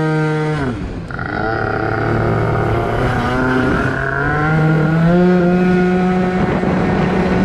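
Two-stroke engine of a Yamaha Aerox scooter, bored out with a Polini 70cc steel-bore kit, revving up and dropping off about a second in. It then pulls away, its pitch climbing steadily as the scooter accelerates and holding a high, steady note near the end.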